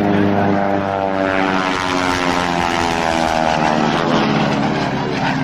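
Propeller-driven aircraft flying past low, its engine drone slowly falling in pitch as it passes.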